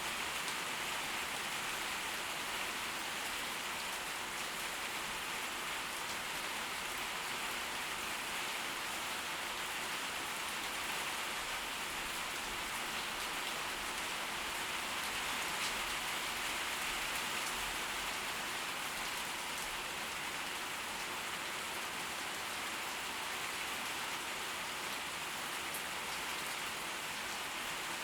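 Steady tropical-storm rain falling, an even hiss with scattered drop ticks and no thunder.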